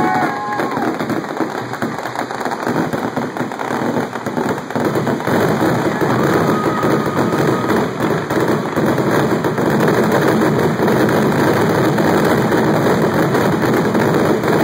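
A barrage of fireworks: dense, rapid popping and crackling with bangs mixed in, packed close together and getting louder about five seconds in.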